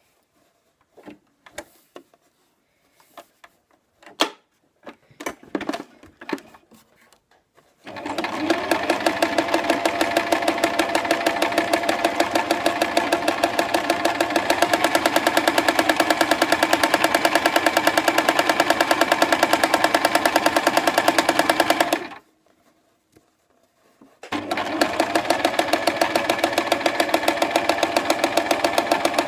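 Electric sewing machine stitching fabric: a few seconds of light clicks and knocks as the fabric is positioned, then the machine runs at a steady speed with a rapid, even needle rhythm for about fourteen seconds, stops briefly, and starts sewing again near the end.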